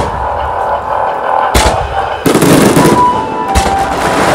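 Fireworks display at full intensity: heavy booms of bursting shells, one about a second and a half in and another near the end, with a dense burst of crackling between them.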